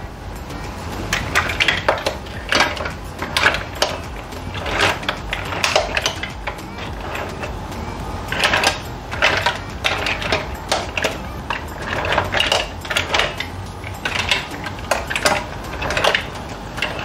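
Cooked green mussel shells clattering against one another and the pan as a spatula tosses them: irregular runs of clicks and rattles.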